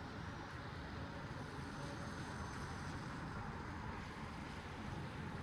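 Light rain falling steadily, an even hiss with a low rumble underneath.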